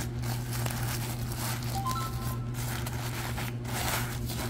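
Plastic courier mailer and bubble wrap rustling and crinkling as a bubble-wrapped tablet is handled and slid out of the slit-open pouch, with a steady low hum underneath.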